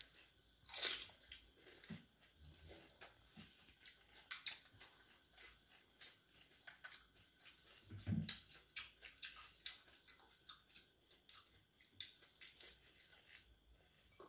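Pani puri (golgappa) being bitten and chewed: the crisp, hollow fried puri shells crunch, with many small crackles and clicks. There are louder crunches about a second in and again around eight seconds.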